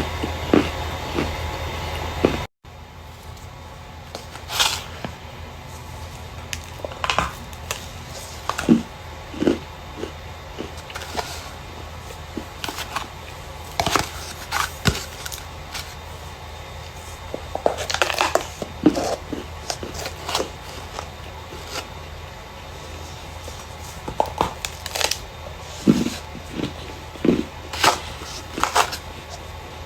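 Dry starch being crushed and crumbled, irregular short crunches and crackles coming in uneven clusters.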